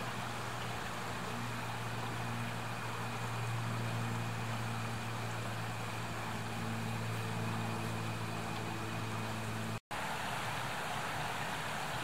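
A steady low engine hum, like a motor idling, over the continuous rush of flowing water. After a brief dropout about ten seconds in, the hum is gone and only the stream's rushing water remains.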